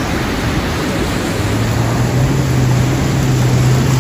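Fast river water rushing and churning around a Maruti Gypsy stuck bonnet-deep in the current. About a second in, a steady low vehicle engine drone joins the water noise.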